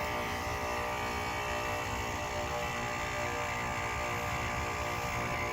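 Heat pump running in defrost mode, the compressor working in cooling mode: a steady hum with many tones and no change.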